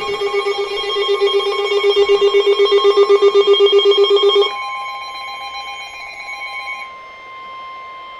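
Several NOAA weather radio receivers alarming together ahead of a warning broadcast. A loud, rapidly pulsing alert tone, about five pulses a second, cuts off about four and a half seconds in. A second radio's alarm carries on until about seven seconds in, over the steady single-pitch Weather Service warning alarm tone.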